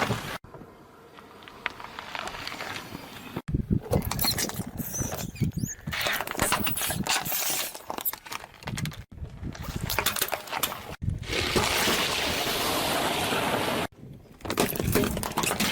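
Objects crackling and crunching as they are crushed under a car's tyres, in several short clips cut together abruptly.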